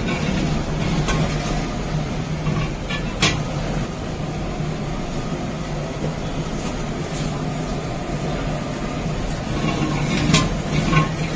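A long metal ladle stirring a thick curry in a large aluminium cooking pot, clinking sharply against the pot a few times, loudest about three seconds in and again near the end, over a steady low rumbling roar.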